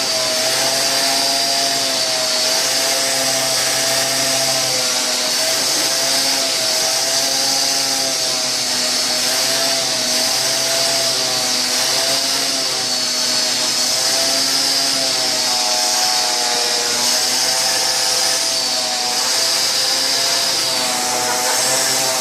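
Vacuum cleaner running steadily, its nozzle worked over a Bengal cat's fur; the motor's whine wavers slowly up and down in pitch as the nozzle moves.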